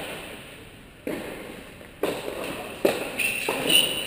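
Tennis balls struck by rackets in a rally, three or four sharp pops about a second apart, each echoing in the large indoor tennis hall. A short high squeak comes near the end.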